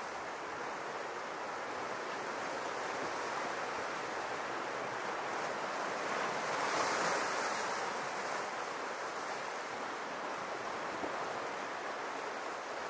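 Small sea waves washing against a rocky shore: a steady wash that swells louder once about halfway through.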